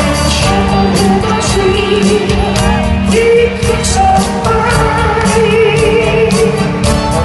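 Live soul band playing with a male lead singer, recorded from among the audience in a large hall. The voice carries a wavering, held melody over keyboards and a steady drum beat.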